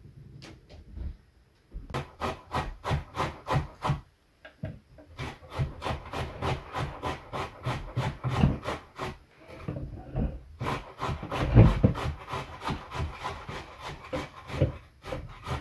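Rapid repeated scraping strokes on wood, about three to four a second, in several runs with short pauses between them.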